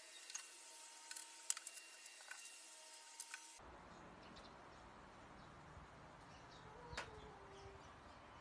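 Near silence: faint room noise with a few light clicks and taps. The background changes abruptly about three and a half seconds in.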